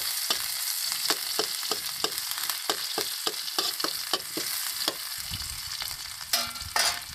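Cabbage greens sizzling as they fry in a metal wok, with a metal spatula scraping and tapping the pan about three times a second. The stirring stops about five seconds in, and two louder metal clanks come near the end.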